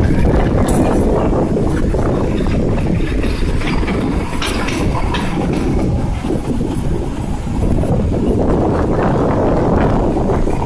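Shimla narrow-gauge toy train running, heard from aboard: a loud, steady rumble of wheels and carriage, with scattered clicks and rattles.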